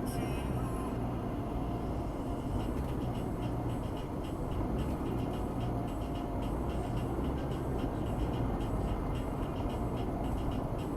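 Steady road noise and engine rumble of a vehicle driving along, with a light, regular ticking from about three seconds in.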